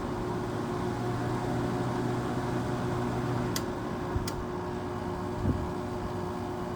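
Window air conditioner running on high fan with its rotary compressor on: a steady rush of fan air over a steady hum. A couple of sharp clicks a little past halfway and a brief thump about two-thirds through.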